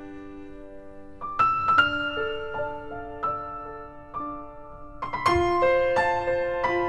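Background piano music: slow, gentle notes and chords, with louder chords struck at about one and a half seconds and again past five seconds.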